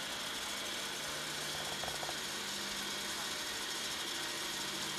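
Telex ACC-4000 cassette duplicator running as it copies cassettes, a steady motor and tape-transport hum over hiss. A few faint ticks come about two seconds in.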